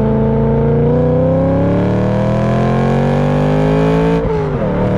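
BMW E92 M3's 4.0-litre V8, heard at its quad exhaust tips, pulling hard in a low gear: the exhaust note rises steadily in pitch for about four seconds, then drops sharply as the manual gearbox is shifted up.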